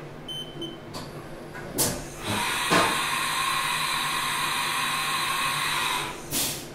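Haas CNC vertical machining center changing tools: a click, then a steady hiss for about four seconds, then a knock near the end as the drill is put away and the next tool is fetched from the carousel.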